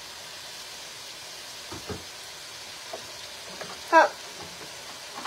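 Pot of sausage, chicken and tomato sauce sizzling steadily on the stove as cream cheese is added, with a couple of light knocks about two seconds in and one short loud sound about four seconds in.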